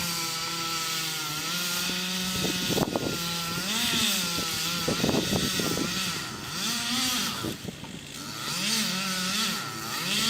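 Gasoline chainsaw running at high revs as it cuts into a tree trunk, its pitch dipping and rising repeatedly as it works through the wood, easing off briefly about seven and a half seconds in.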